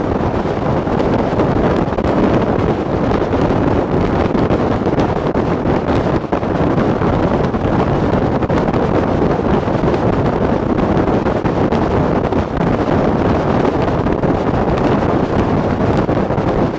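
Steady wind rush buffeting the microphone of a motorcycle at highway speed, mixed with the bike's engine and road noise.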